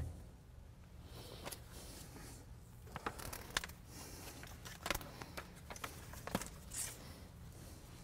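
Cloth towel rubbing and pressing on a plastic door sill guard: faint scrapes and rustles, with a few sharp clicks about three, five and six seconds in, over a low steady hum.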